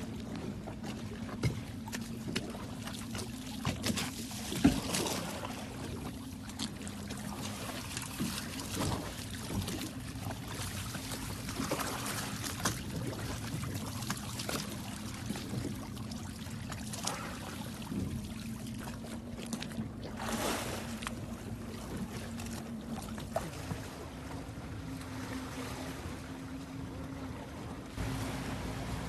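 Outboard motor idling with a steady low hum, while water sloshes and splashes against an inflatable boat and a wet fishing net is hauled aboard, with scattered knocks and drips. About a second before the end a louder steady rush of boat and water noise takes over.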